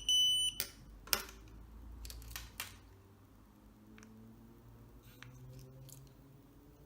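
The Pandora Multibrand 605 signal tester gives a high electronic beep that stops about half a second in. Then come a handful of sharp clicks as car key fob buttons are pressed and the keys are handled, the loudest about a second in.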